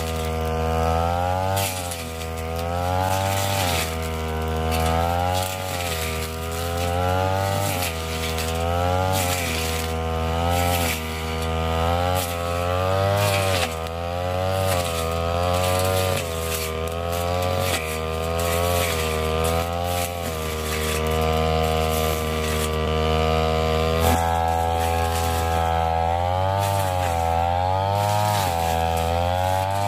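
Ryu backpack brush cutter engine running at high speed while cutting thick, tall grass. Its pitch dips and climbs back every second or two as the cutting head bites into the grass and frees again, and it holds steadier for a few seconds in the middle.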